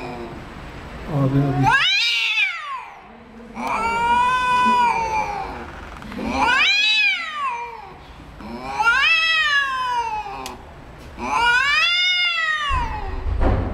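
Cats yowling in an angry standoff: five long, wavering yowls, each rising then falling in pitch, about every two and a half seconds.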